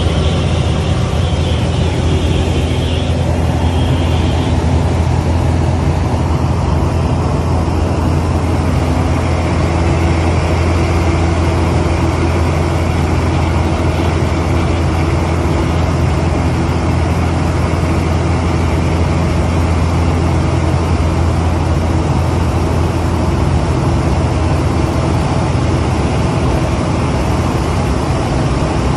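Cessna 188 agricultural plane's piston engine and propeller droning steadily at cruise power, heard from inside the cockpit in flight.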